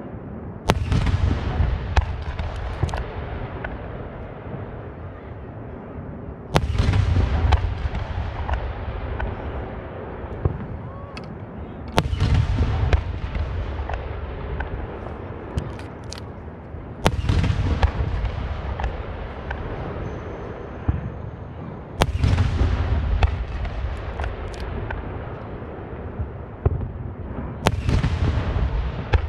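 Aerial firework shells bursting: six large booms about five seconds apart, each trailing off in a long rumble, with sharper single cracks in between.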